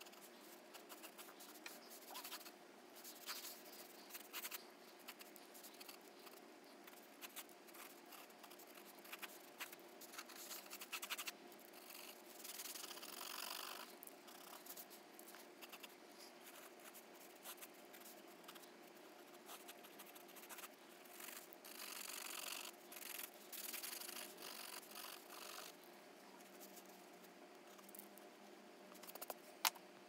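Faint scratching of a mechanical pencil's graphite on sketchbook paper, in short strokes and longer stretches of shading, over a faint steady hum. A single sharp click comes near the end.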